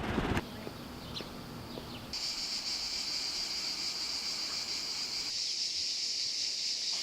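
Cicadas buzzing in a steady, high-pitched drone that starts about two seconds in.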